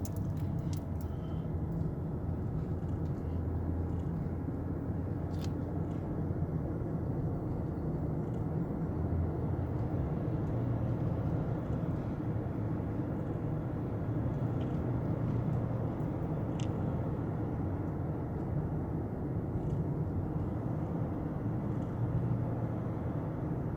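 Steady road and tyre rumble of a 2009 Lexus LS460 under way, heard from inside the cabin, with a couple of faint ticks. No rattle comes from the front suspension, which is called quiet, the sign that the newly replaced air-suspension shock has cured the noise.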